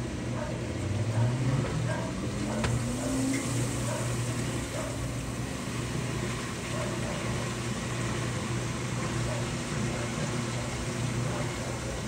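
Brastemp Vantage top-load washing machine spinning up: a steady motor hum, with a rising whine over the first few seconds as the motor brings the basket up to speed.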